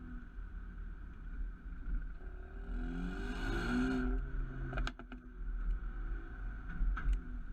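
Mercedes-AMG A35's turbocharged 2.0-litre four-cylinder and exhaust: revs climb under a short burst of acceleration about two seconds in, then on lifting off a few sharp pops and crackles from the exhaust about five seconds in, and another pop near the end.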